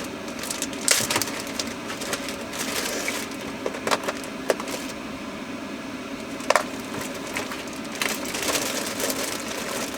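Small objects being rummaged through and handled, rustling and clattering with irregular sharp clicks and knocks.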